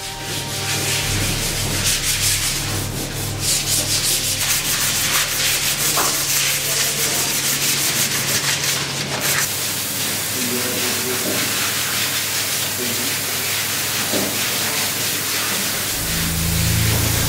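Hand sanding of carved wooden furniture frames: abrasive paper or a sanding block rubbed back and forth over the wood in quick strokes, giving a dense scratchy hiss. It grows steadier about halfway through, over a low steady hum.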